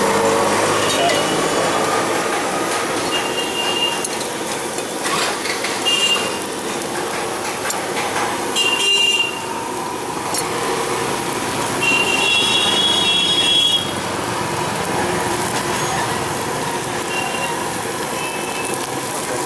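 Steady noise at a street food stall, with short high-pitched squeals every few seconds and a couple of brief knocks.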